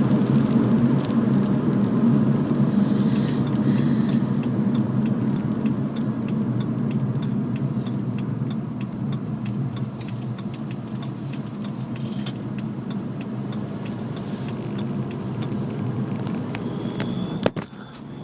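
BMW 320d E90's four-cylinder turbodiesel engine running while driving, a steady drone that eases off slowly. Near the end a faint high whistle comes in, followed by a sharp click; the owner complains of a turbo whistle that appears only under load and acceleration.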